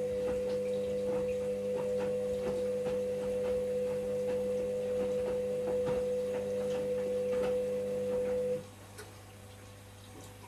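Washing machine running: a steady motor hum with irregular clicks and knocks from the drum. The motor cuts off suddenly near the end, leaving a faint low hum.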